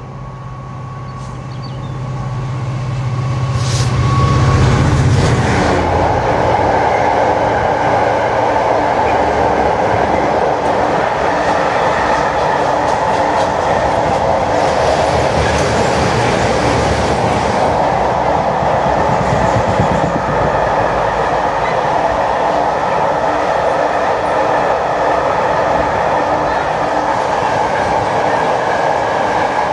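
Freight train passing close by. The locomotive's low, steady hum grows louder as it comes in and passes about four to five seconds in. A long string of mostly empty container flat wagons then runs past with a steady sound of wheels on the rails.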